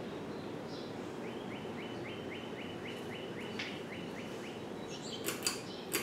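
52-inch Hunter Infiniti ceiling fan running on high: a steady rush of air from the blades. For a few seconds in the middle, a run of short rising high chirps comes about three a second, and a few sharp clicks come near the end.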